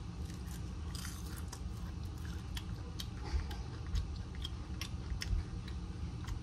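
A person chewing a crisp air-fried Brussels sprout, with scattered small crunches and clicks over a low steady hum.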